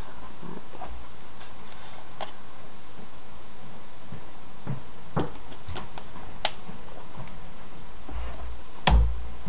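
Scattered small clicks and taps of nail-art tools and polish being handled, with one heavier knock near the end.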